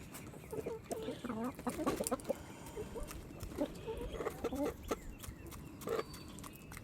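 A small flock of chickens clucking with many short calls while feeding, with scattered sharp clicks among them.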